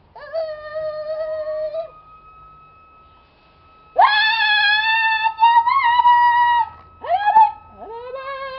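A high-pitched human voice holding two long, slightly wavering notes, then a few short rising whoops and a lower wavering call near the end.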